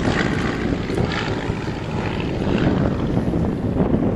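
SE5a First World War biplane in flight, its piston engine and propeller running steadily as it banks away.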